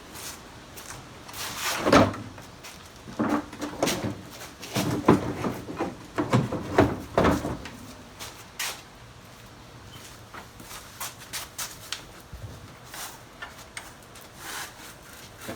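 Hand tools and metal parts knocking and clinking while work is done on a vehicle's suspension. There is a sharp knock about two seconds in, a cluster of knocks a few seconds later, then lighter scattered clicks.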